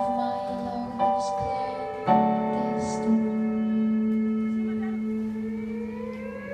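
Live music from a keyboard and guitar duo. Chords are struck about a second apart, then one long chord is held.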